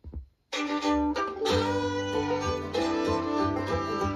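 Music played through a Victor MX-S7WMD mini stereo system on BOSE Model 121 speakers. After a brief silence between tracks, a new piece with plucked and bowed string instruments starts about half a second in.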